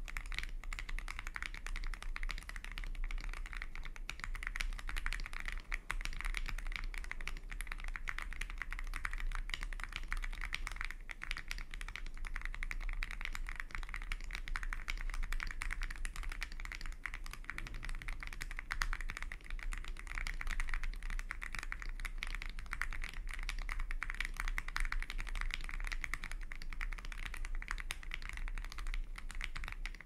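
Continuous fast typing on an Akko ACR Pro Alice Plus mechanical keyboard fitted with lubed Akko Jelly Pink linear switches, with an aluminum plate and Poron plate foam: a dense run of key clicks.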